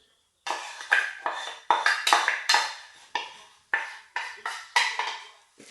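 A quick series of about a dozen sharp clatters and scrapes of a pan and spoon as sauce is poured and scraped out over the chicken wings, starting about half a second in.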